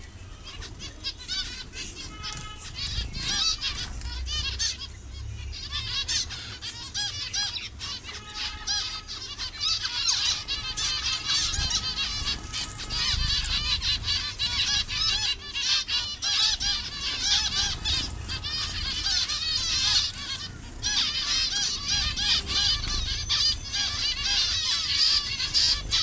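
A colony of zebra finches calling, a dense chorus of many short, overlapping calls with only brief lulls.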